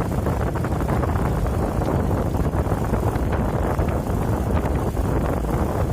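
Wind buffeting the microphone of a moving vehicle on the road: a steady, low rumbling rush.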